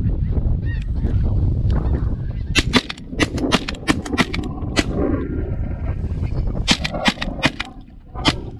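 Volleys of shotgun shots at a passing flock of snow geese: a rapid string of sharp cracks about two and a half seconds in, and a second string near the end. Geese calling near the start, over wind rumble on the microphone.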